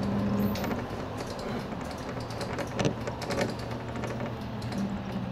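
Cabin sound of a Nissan Diesel Space Runner city bus driving in slow traffic: a steady engine hum that eases off about half a second in and comes back near the end, with many small clicks and rattles and one louder knock about three seconds in.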